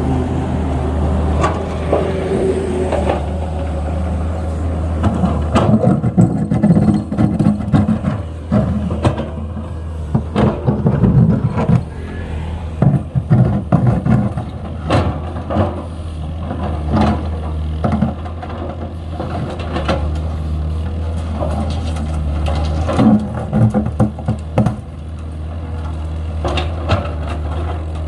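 Komatsu PC210LC excavator's diesel engine running steadily under work, with many loud metallic clanks and knocks from the bucket and digging gear coming in clusters through the middle and again near the end.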